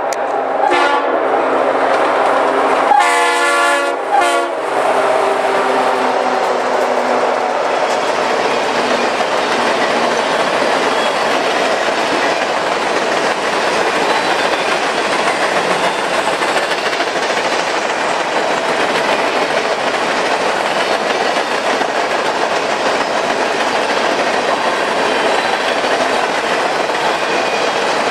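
EMD SD80MAC diesel locomotives' air horn sounding a short blast and then a louder, longer one, followed by the train's cars rolling past with steady wheel clatter.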